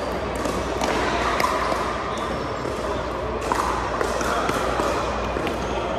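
Pickleball play in a large gym: sharp, irregular pops of paddles hitting plastic balls and balls bouncing on the hardwood floor, echoing in the hall, with voices from around the courts.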